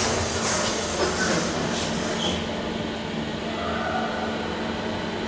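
Machine-room-less traction elevator heard from inside the car. For the first two seconds or so the doors slide shut with a rhythmic swishing, about two strokes a second. After that only the car's steady low hum remains.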